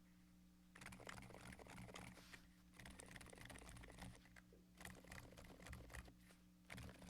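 Typing on a Keychron Q2 mechanical keyboard fitted with Silent Alpaca linear switches, tape-modded and filled with polyfill: faint, muted keystrokes in quick runs, starting about a second in and pausing briefly three times.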